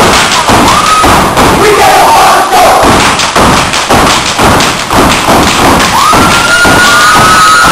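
Step team stepping in unison: rapid rhythmic stomps on a wooden stage floor and claps. Audience shouts rise over it near the end.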